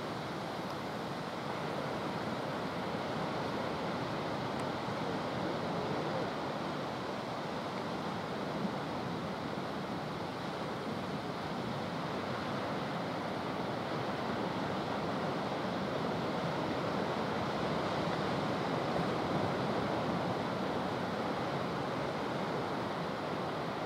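Small surf waves breaking and washing up a sandy beach: a steady rushing hiss that swells and eases gently.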